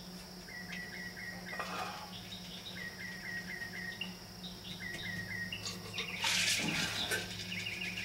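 Northern mockingbird singing at night, repeating short chirped notes in quick runs and switching from one phrase to another, over a steady cricket chorus and a low hum. About six seconds in, a brief loud rustling noise covers the song.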